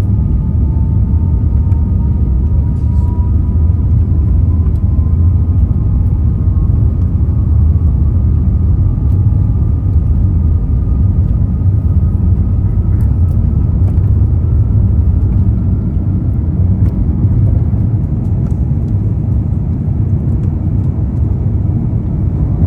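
Airbus A350-900 with Rolls-Royce Trent XWB engines, heard from inside the cabin: a loud, steady rumble, with a thin whine rising slowly in pitch over the first fifteen seconds or so.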